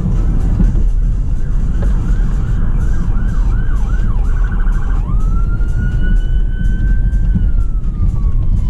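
Ambulance siren heard from inside a moving car: a yelping pattern of rising sweeps that speeds up into a rapid warble, then about five seconds in a long wail that rises, holds and slowly falls. Under it runs the car's steady engine and road rumble.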